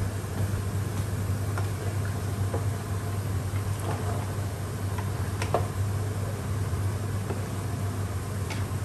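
Wooden spoon stirring a thick cream sauce in a stainless steel pot, with scattered light knocks and scrapes against the pot, over a steady low hum.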